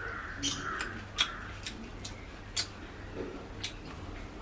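Crunching and chewing of crispy deep-fried fish, a handful of sharp, irregular crunches a few tenths of a second to a second apart.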